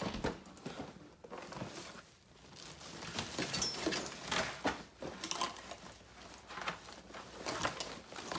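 Rustling and crinkling of a backpack and packaging being handled, with scattered short knocks and bumps as a boxed fan is set down and the backpack is pulled out. The handling is busiest in the middle.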